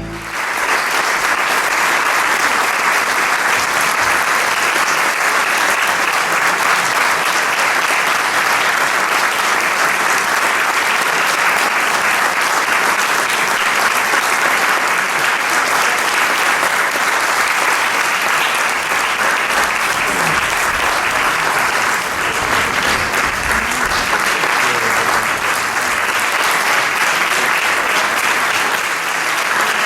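Theatre audience applauding steadily with sustained clapping.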